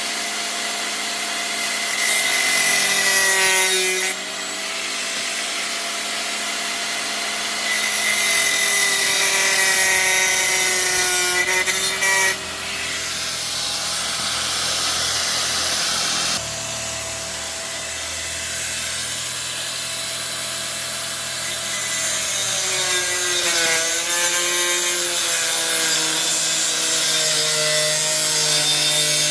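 A power tool running with a motor tone that dips and recovers as it works under load, with two louder spells of hissing, about two seconds in and again from about eight to twelve seconds in.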